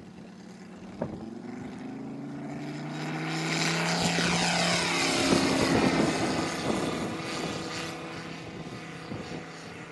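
Radio-controlled scale model Sea Fury's engine and propeller throttling up for the takeoff roll, rising in pitch. It passes loudest about five seconds in as the plane lifts off, then fades as it climbs away.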